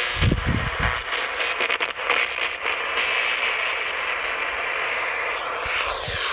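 Power-line interference on a communications receiver: a steady harsh buzzing static, with a few low thumps in the first second. The operator blames the interference on a bad or loose ground or a lightning arrester on the line.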